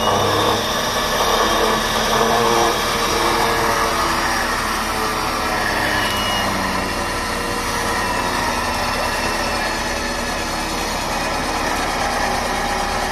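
Electric winch on a Jeep Rubicon's front bumper running steadily under load, reeling in its rope as the line takes up slack and pulls taut against a fallen tree.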